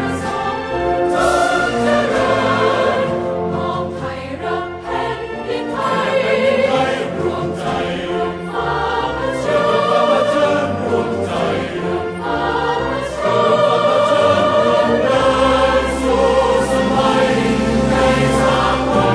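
Background music with a choir singing long, sustained notes; a deeper bass part comes in near the end.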